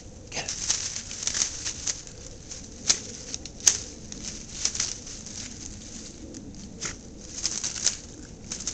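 Jack Russell terriers scrambling over a brush pile of dry sticks and dead leaves: irregular rustling and crackling, with two sharp clicks about three and four seconds in.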